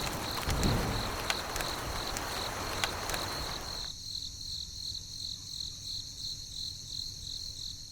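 Insect chirping in a steady, evenly pulsed high trill, about two to three pulses a second, over a hiss of background noise with a few clicks; the hiss cuts off suddenly about four seconds in, leaving the chirping.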